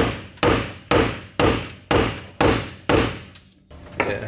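Hammer striking metal: steady blows about two a second, seven strikes, each ringing briefly, then the hammering stops.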